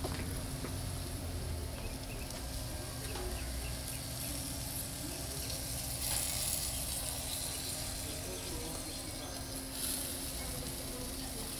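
Chicken breasts sizzling on a gas grill, a soft hiss that gets brighter for a few seconds in the middle when heard close over the grates, over a steady low hum.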